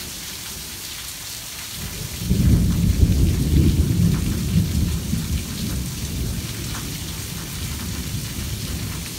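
Torrential rain pouring steadily, with a long low rumble of thunder that rises about two seconds in, is loudest around three seconds, and slowly dies away.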